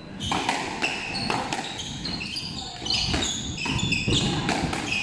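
Squash rally: repeated sharp knocks of the ball off racket strings, walls and floor, with short high squeaks of court shoes on the wooden floor.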